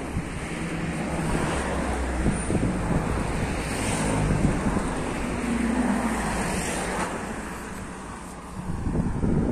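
Wind buffeting the phone's microphone in gusts, over the sound of car traffic on the road.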